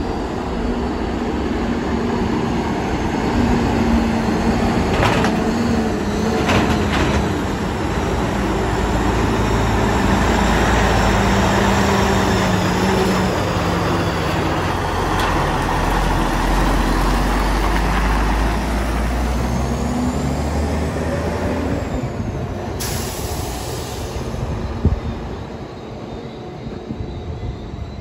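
Cummins N14 diesel engine of a loaded truck running under way, its note rising and falling through the gears. A short hiss of air, typical of a truck's air brakes, comes near the end, and the engine then eases off.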